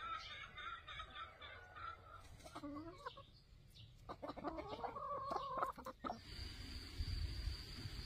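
Chickens clucking in short pitched calls, with a quick run of clucks between about four and six seconds in. A thin steady high tone sets in near the end.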